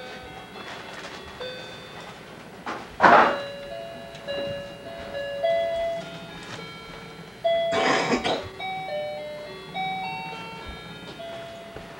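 A simple electronic tune of clean, beeping single notes, like a musical toy's or card's chime melody, plays throughout. It is broken by two short, loud, noisy bursts about three and eight seconds in.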